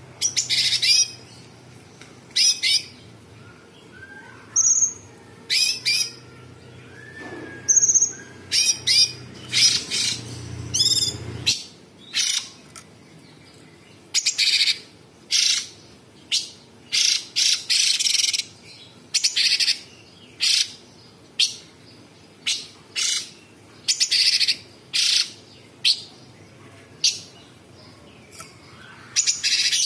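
Caged cucak cungkok singing a long run of short, sharp, high-pitched calls, about one or two a second with brief gaps between them. A faint low hum underlies the first eleven seconds or so, then stops.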